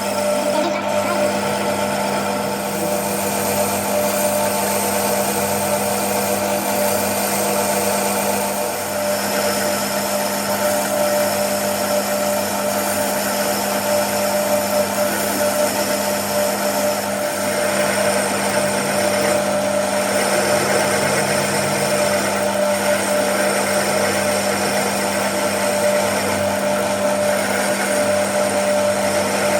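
A machine tool running steadily, a constant hum with steady tones that hardly change.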